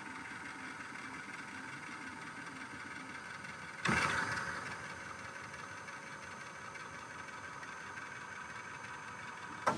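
A steady workshop hum with several fixed tones and camera hiss. About four seconds in, a loud metallic clunk rings out for about a second as the milling machine's quill is brought down. A short sharp click comes near the end.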